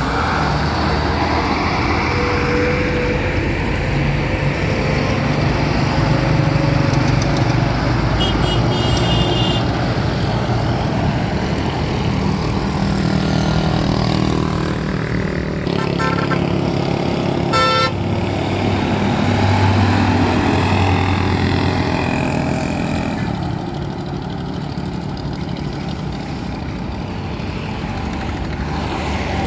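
Roadside highway traffic: a heavy truck hauling a container trailer pulls past with its diesel engine running, and other vehicles go by. Short horn blasts sound about eight seconds in and again twice around sixteen to eighteen seconds.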